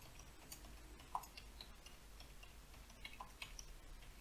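Faint computer keyboard typing: scattered, irregular keystrokes as a sentence is typed.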